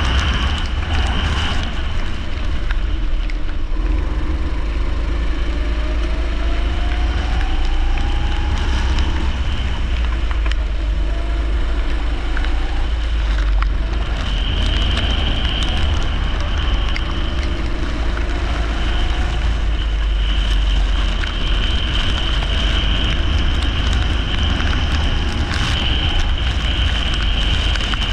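Leisure kart's engine running flat out on a wet track, heard with heavy wind buffeting on the microphone; its pitch rises several times as it accelerates.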